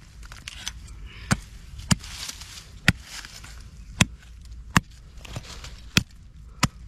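A blade chopping into something in the dug earth with about seven sharp strokes, roughly one a second, with scraping and crackling of soil and debris between the strokes.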